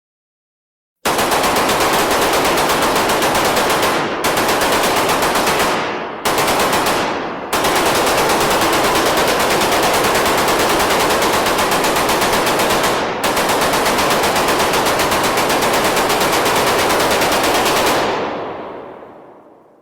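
Automatic gunfire indoors: long, rapid bursts of shots with a few brief breaks, then a reverberant tail that fades away near the end.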